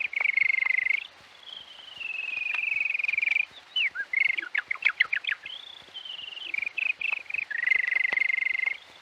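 A man imitating birdsong: a high, metallic bird trill made by fluttering one lip. Long trilled notes step and slide down in pitch, with a run of quick separate chirps in the middle, and the song ends on another long trill.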